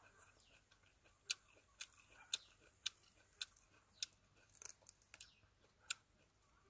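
A person chewing juicy dekopon mandarin segments: a string of short, sharp wet smacks and clicks, roughly two a second, over a quiet background.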